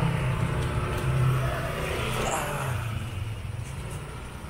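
Motorcycle engine running under way, with road and wind noise; it eases off a little near the end.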